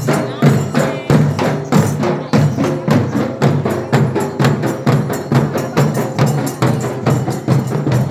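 A group of dollu drums, the large barrel drums of Karnataka's Dollu Kunitha folk dance, beaten with sticks by a dancing troupe in a fast, even beat of about three strokes a second.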